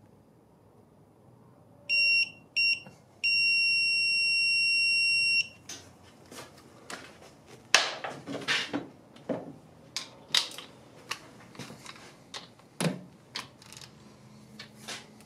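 Electronic torque wrench beeping: two short high beeps, then one steady beep lasting about two seconds, the signal that the set torque has been reached. Then a run of irregular sharp clicks and knocks of tools on metal.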